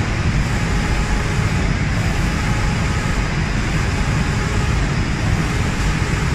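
Automatic spray-painting machine running: a steady, loud mechanical hum and hiss with a heavy low rumble.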